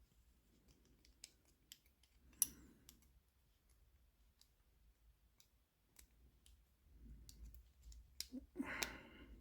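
Faint small metallic clicks and taps of a padlock's parts and tools being handled during disassembly, with one sharper click about two and a half seconds in and a brief louder rustling noise near the end.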